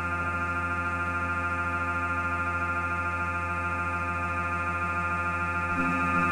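Live electronic drone music played from a laptop: a dense, steady cluster of sustained tones over a deep hum. Near the end a new low tone comes in and the level rises slightly.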